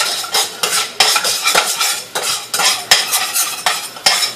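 A utensil stirring in a pot, with quick, irregular scrapes and knocks against the pot, while minced onion and garlic sauté in olive oil with a faint sizzle underneath.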